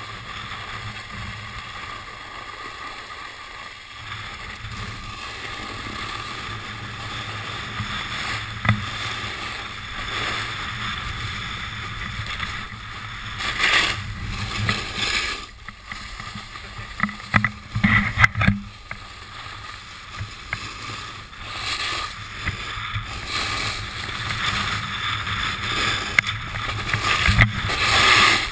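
Edges hissing and scraping over packed snow during a downhill run, with wind rushing over the camera's microphone. A few louder scrapes stand out, the biggest about 14, 18 and 27 seconds in.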